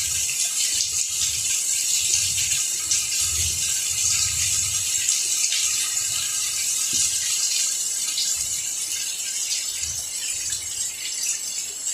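Steady rain falling on plant leaves: a dense, even hiss of drops, with soft low rumbles now and then.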